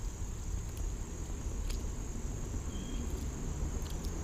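Steady, high-pitched trilling of insects, unbroken, over a low rumble, with a few faint clicks.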